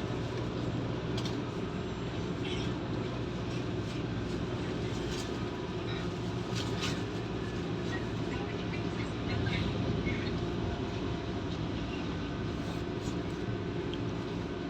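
Vossloh/Stadler Citylink Class 399 tram-train heard from inside while running: a steady low rumble from traction equipment and wheels on rail, with scattered light clicks and a slight swell about ten seconds in.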